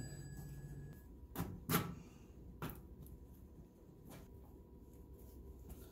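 A few light knocks and clicks as dryer parts are fitted by hand: a cover going over the wire leads, then the white plastic vent elbow being handled. The loudest knock comes just under two seconds in.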